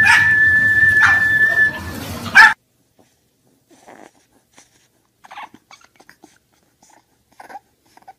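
A pack of pugs scrambling down a wooden hallway, their paws clattering, under a steady high whistle, ending in a sharp loud knock about two and a half seconds in. Then a bulldog puppy's faint short whimpers and snuffles.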